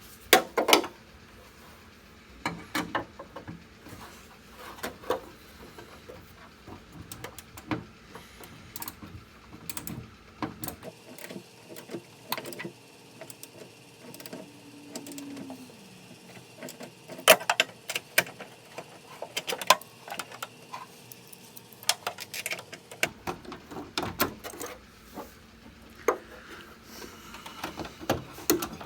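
Hand tool tightening the nuts on a door handle mount: irregular metallic clicks and small knocks in short runs, with pauses between.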